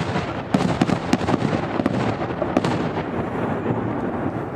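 Aerial fireworks bursting: a rapid string of sharp bangs over the first three seconds or so, then easing off, over a continuous low rumble.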